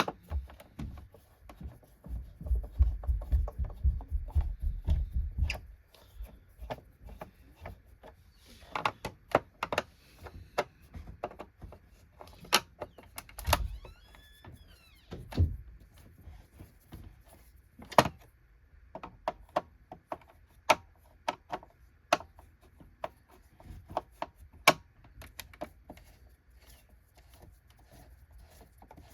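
Plastic vacuum cleaner being handled and its base-plate screws undone with a Phillips screwdriver: a low rumbling clatter a couple of seconds in, then scattered clicks and taps of the screwdriver and plastic housing, with a brief squeak around the middle.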